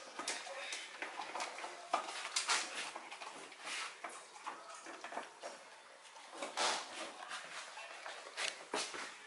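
Dog eating from a stainless steel bowl: irregular crunching and chewing with small clinks of food against the metal.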